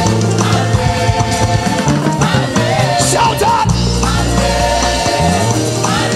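Live gospel praise band playing an upbeat song loudly, with group singing over keyboards and a held bass line that shifts every second or so.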